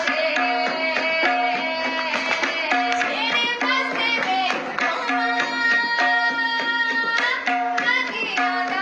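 Indian Christian worship song: a voice singing over tabla drumming and steady held instrumental notes.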